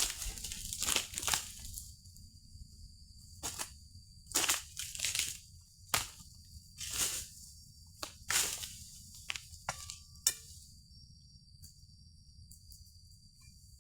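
Oil palm fronds being cut with an egrek, a sickle on a long pole: a dozen or so irregular crunching, tearing strokes, with a sharp crack at about six and ten seconds in. The strokes stop about ten seconds in.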